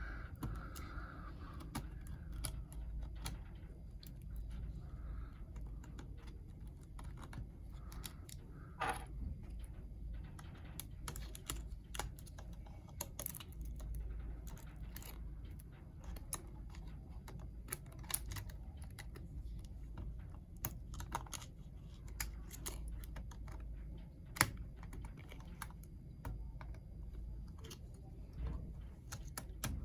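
Irregular small clicks and taps of plastic and metal laptop parts being handled during disassembly, with one sharper click about 24 seconds in, over a steady low hum.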